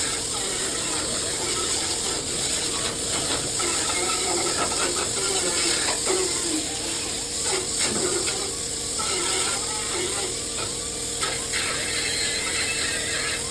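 Power drill running steadily under load, drilling out spot welds in sheet-metal body panels so a rusted panel can be removed.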